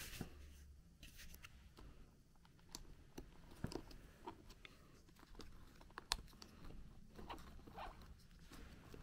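Faint handling noise from new leather Mary Jane shoes: scattered small clicks and rustles as the leather straps and metal buckles are fiddled with, with one sharper click about six seconds in.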